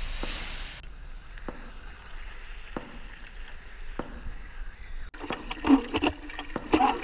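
A hand-operated well pump being worked stroke by stroke from about five seconds in, giving pitched squeaks about once a second while its spout pours water into a plastic bucket. Before that, surf washes briefly on a beach, then comes a quiet stretch with faint ticks about every second and a half.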